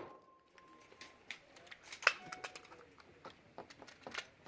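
A lull between gunshots on a shooting stage: faint scattered clicks and knocks, with a ringing tone from the last shot fading out in the first second.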